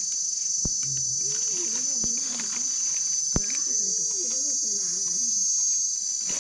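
Steady, high-pitched drone of a forest insect chorus, with a few sharp clicks and snaps over it.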